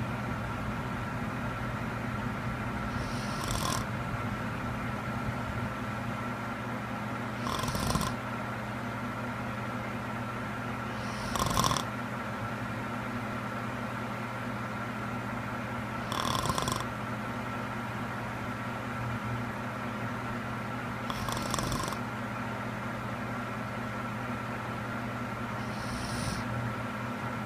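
A sleeping woman snoring: six short snores, one about every four to five seconds, over a steady low hum.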